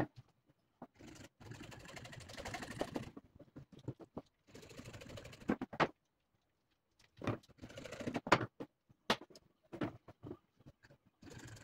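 Hacksaw cutting half-inch PVC pipe in two stretches of rapid rasping strokes, followed by several sharp knocks and taps as pipe pieces are handled on a wooden table.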